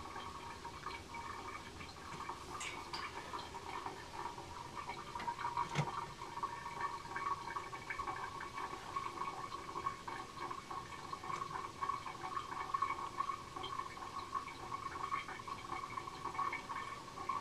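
Waste water from a washing machine's drain cycle running down the house drain pipe and gurgling up through a sink: a steady, fluttering rush of water. A single short click about six seconds in.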